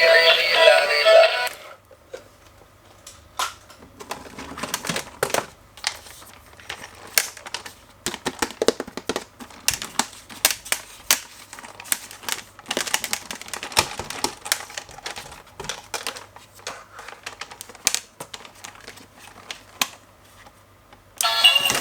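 Irregular sharp clicks and light taps of plastic being handled, like a toy and its packaging being unboxed. Background music stops about a second and a half in and comes back near the end.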